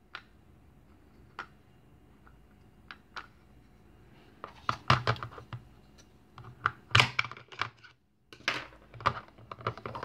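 Plastic toy food being handled on a plastic toy cutting board: a few light clicks and taps, then from about halfway several short crackly rips of velcro as a toy knife parts a velcro pea pod and the pod is pulled open.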